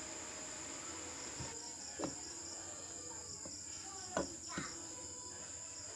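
Faint, steady high chirping of insects, with a few light clicks of metal engine parts being handled, the clearest about two and four seconds in.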